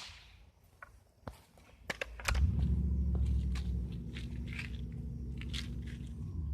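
Scattered short clicks and crunches of an air rifle being handled and reloaded between shots. About two seconds in, a steady low rumble starts under the clicks and runs on.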